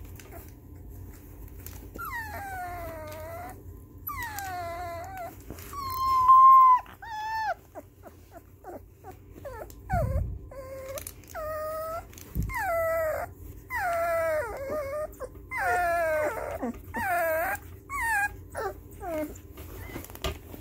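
Very young puppy whimpering and crying in distress: a string of high, falling whines, one longer held cry about six seconds in, then quicker whines one after another. The owner ties the crying to music being played in the room for the first time since the puppies' ears opened.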